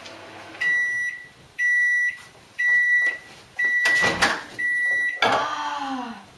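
Microwave oven's end-of-cycle beeper sounding five times, about once a second, in one steady high pitch. The door latch clicks open about four seconds in, between the fourth and fifth beeps.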